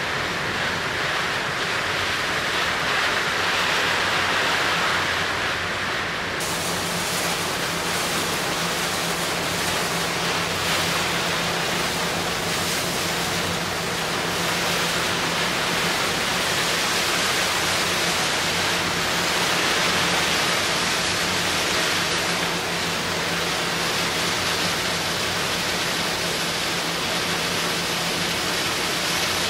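Steady rush of sea water and wind from aboard a small cargo-passenger ship under way, with a low, steady hum of the ship's engine underneath that comes in about six seconds in.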